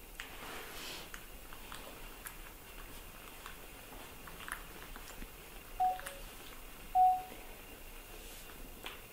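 Two short, high squeaks from a young animal about a second apart past the middle; the first drops in pitch partway, the second is a little longer and the loudest. Faint scattered clicks and rustles sit between them.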